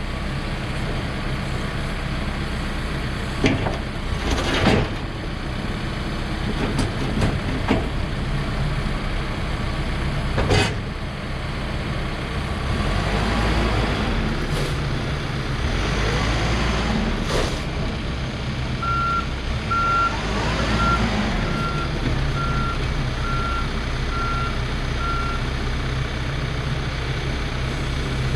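2013 Case 590 Super N loader backhoe's diesel engine running and labouring under load as the machine is worked, with several sharp metal clanks. Near the middle the reverse alarm beeps about eight times at an even pace: the machine is in reverse.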